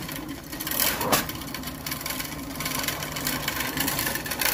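Push broadcast spreader rolling over grass, its wheel-driven spinner whirring steadily as it throws fertilizer granules, with a couple of short knocks in the first second.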